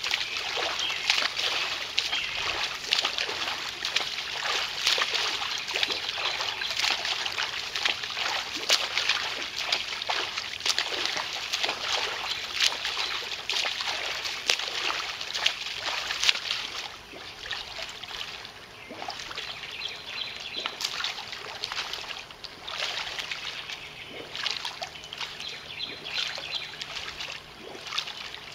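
Water splashing and churning from a swimmer's continuous strokes while swimming in place in an above-ground pool. The splashing is loudest at first and eases off about two-thirds of the way through.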